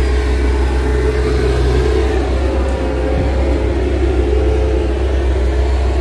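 Skid steer loader's engine running steadily with a loud, even drone.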